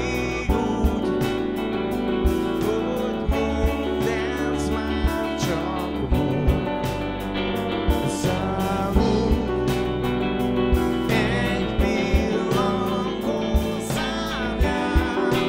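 Live rock-pop band playing a song: a singer over stage keyboard, bass guitar, guitar and drums, with a steady drum beat.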